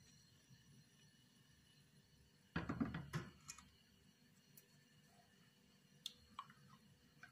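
Quiet stirring of milk in an aluminium pot with a silicone spatula. About two and a half seconds in there is a burst of knocks and scrapes lasting about a second, followed by a few faint clicks.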